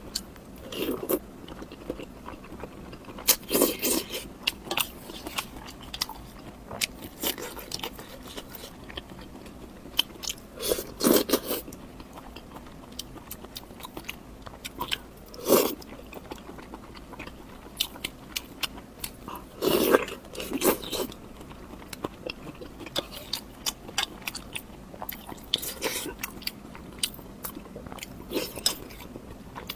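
Close-miked eating: a person biting and chewing crunchy food, with many irregular crisp clicks and a few louder bites spread through.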